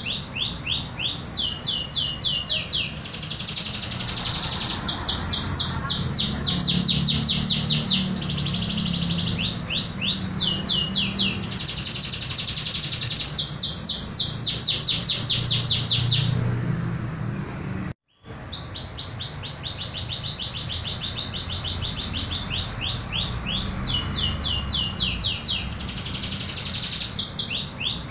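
Local domestic canary singing its own natural song with no phrases copied from other birds: a long run of fast trills, each a rapid string of identical notes, one trill following another. The song breaks off sharply for a moment about two-thirds of the way through.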